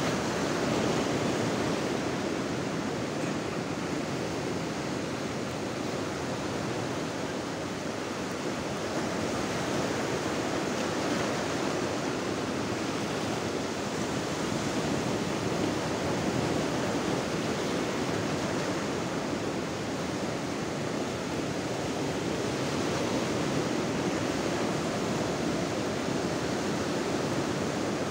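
Sea surf breaking and foam washing over the shore: a steady rush of water that swells and eases slowly as the waves come in.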